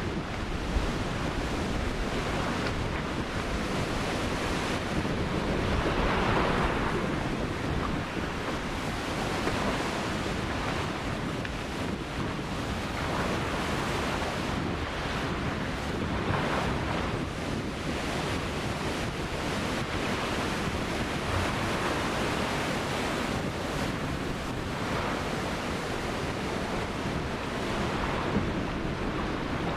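Ocean surf: waves breaking and washing up the beach in slow swells every few seconds, with wind buffeting the microphone.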